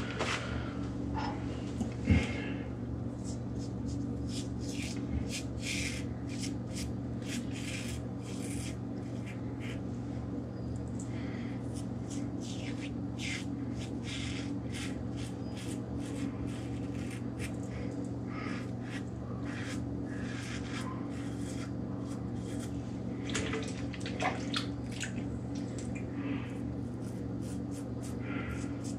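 Rockwell 6S safety razor with a Gillette Permasharp blade scraping through lathered stubble in many short, crisp strokes, over a steady low hum. One sharp knock about two seconds in.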